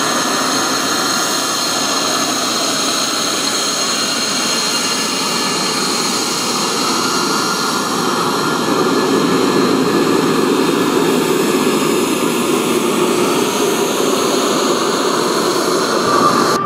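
L-39 Albatros jet trainer's single turbofan engine running as the jet taxis past: a steady rushing noise with a high turbine whine on top, growing a little louder about halfway through.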